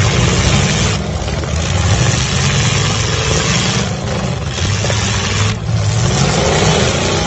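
Demolition derby cars' engines running loudly together, a steady low engine drone under a dense wash of noise.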